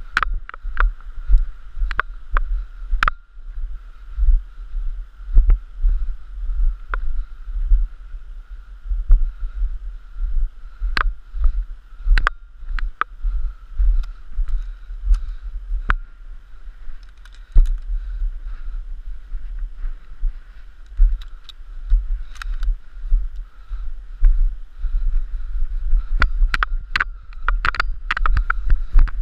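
Footsteps in snow heard through a body-worn action camera: a thud and a jolt of the camera with each step, about two a second, with scattered sharp clicks of gear knocking.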